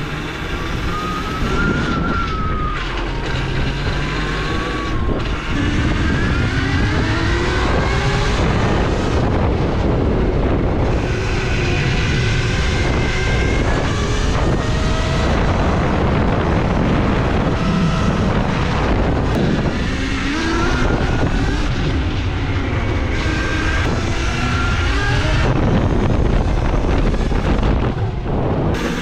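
Electric dirt bike's Zero ZF75-7 electric motor and its controller whining, the pitch rising and falling over and over as the bike speeds up and slows. Underneath is a steady rush of wind and road noise.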